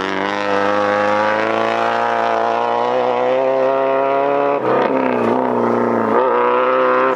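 Subaru WRX STI rally car's engine held at high revs, its pitch steady and slowly climbing. About four and a half seconds in, the pitch dips and wavers a few times, as with lifts off the throttle or gear changes, and then it climbs again.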